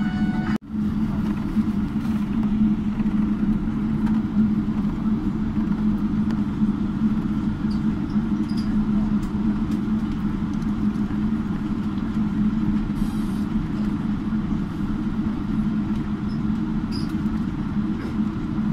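Steady cabin noise of a Boeing 777-300 taxiing, heard from inside the cabin: a constant low engine drone under a rushing air noise. The sound cuts out for a moment just after the start.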